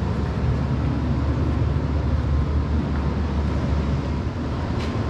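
Steady low rumble of handling noise on a hand-held camera's microphone as it is carried down a stone spiral staircase, with a single click near the end.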